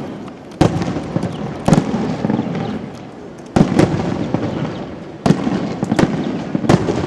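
Aerial fireworks shells bursting overhead: about six sharp booms in seven seconds, each trailing off in a long rumbling echo.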